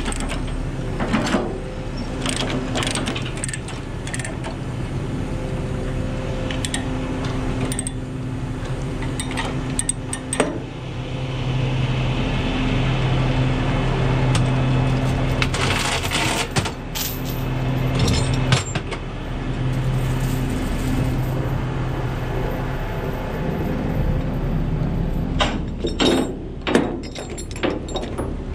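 An engine idling steadily, with scattered metallic clinks and clanks of tie-down chain and hardware as the excavator is chained to the trailer deck; the clanking comes in clusters, most of it near the start, about halfway through and near the end.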